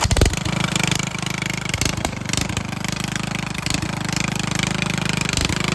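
Riding lawnmower's small engine running steadily with a fast, even beat.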